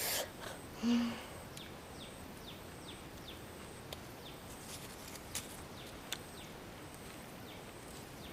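A small bird repeating a short, high, falling chirp about two to three times a second. A brief sharp noise at the very start and a short low hum about a second in stand out above it.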